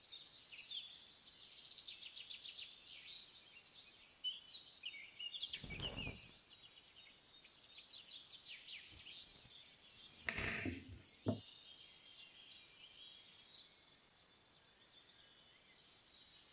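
Birds chirping and trilling faintly throughout, with a few knocks of a chef's knife against a wooden cutting board while carrots are sliced: one about six seconds in, and a pair around ten to eleven seconds in, the last one sharp and the loudest.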